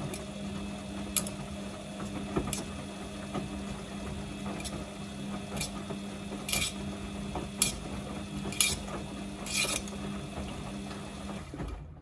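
Samsung front-loading washing machine's drum motor humming steadily as it tumbles wet laundry in the prewash, with sharp clinks about once a second as the load drops. The motor cuts off near the end as the drum stops.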